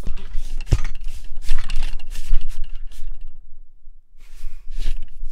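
Scraping, rubbing and knocking from a Neewer NW-088 boom pole's sections being pulled out, carried down the pole into the microphone as transfer noise. A sharp knock about a second in and a short quiet spell near the end, then more scraping.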